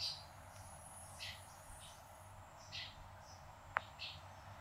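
Faint bird chirps, short calls coming every second or so, with one sharp click a little before the end.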